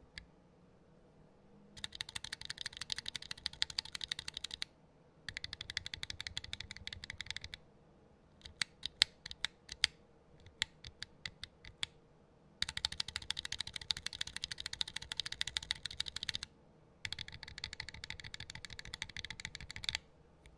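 KK Light Wave V2 linear keyswitches on a small macropad, typed in quick runs of clacking keystrokes. About halfway through, the runs give way for a few seconds to slower, separate single presses. The switches are tested both lubed with 106 oil and dry from the factory.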